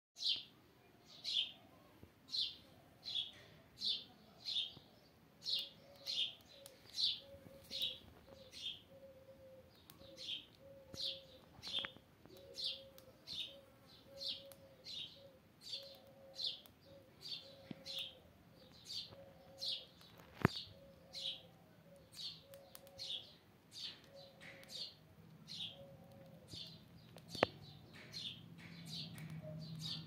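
Indian palm squirrel giving a long steady series of sharp, high, falling chirps, a little more than one a second: the repeated alarm call it makes with its tail flicked up. Two sharp clicks come in the second half.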